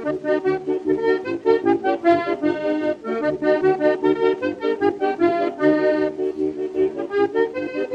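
Background music: a quick instrumental tune of short, rapidly changing notes over a pulsing bass line.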